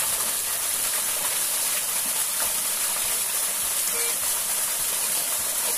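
Small waterfall pouring into a pool: a steady rush of falling water.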